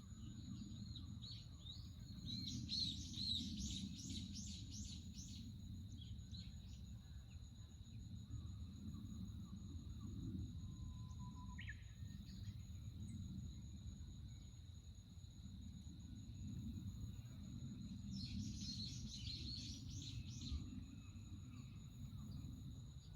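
Forest ambience: a songbird sings in quick bursts of rapid high chirps, about two seconds in and again near the end. Underneath runs a steady high insect drone and a low rumble.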